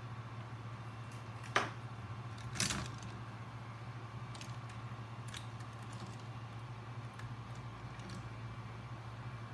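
A steady low hum from the 24 V bench power supply's cooling fan running, with two sharp knocks about one and a half and two and a half seconds in.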